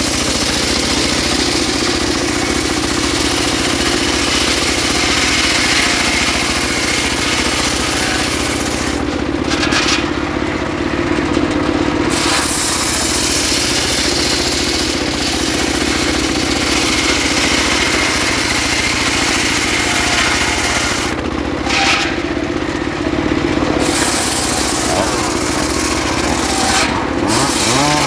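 Homemade circular sawmill blade ripping lengthwise through a trembesi (rain tree) log: a loud, steady cutting noise over the running drive. The high hiss of the cut fades briefly twice, about a third of the way in and again about three quarters of the way in.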